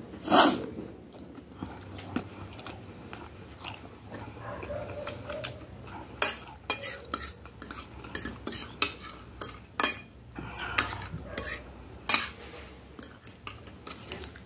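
Metal fork and spoon clinking and scraping against a glass bowl while instant noodles are twirled, in scattered sharp clicks. The loudest knock comes about half a second in.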